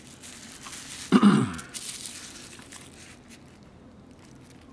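Cables and plastic rustling and crinkling as a cassette Walkman and its headphone leads are handled on bubble wrap. About a second in there is one short, loud sound that falls steeply in pitch.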